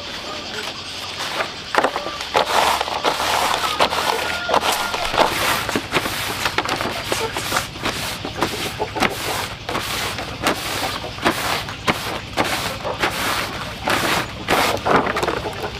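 A cloth wiping large fresh leaves on a woven bamboo tray: repeated brisk rubbing strokes, with the leaves rustling and scraping against the weave.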